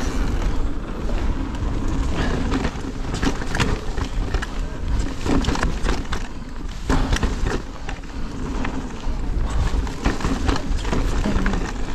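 Electric mountain bike riding fast down a dusty singletrail: wind rushes over the microphone and the tyres crunch over loose ground. The bike's frame, chain and suspension rattle and knock irregularly over the bumps.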